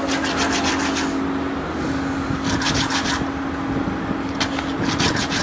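Small grey blocks rubbed by hand against a flat abrasive disc, in three bursts of quick back-and-forth scraping strokes about a second long, with short pauses between. A steady machine hum runs underneath.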